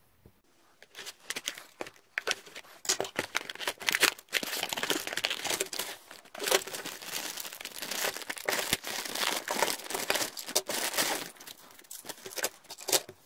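Crinkly packaging wrapping being crumpled and torn open in dense, irregular crackles, sped up in fast motion; the wrapping was hard to get off.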